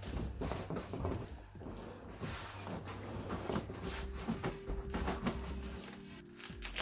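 Scattered knocks, scuffs and cardboard rustling as a large, heavy boxed subwoofer is handled and shifted.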